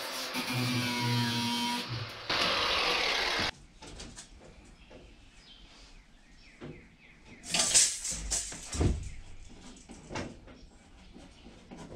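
Cordless drill running in two spurts, driving a screw into a wooden wall stud. The second spurt is louder, and the drill stops abruptly about three and a half seconds in. Quieter handling knocks follow, with one sharp clatter a little before eight seconds in.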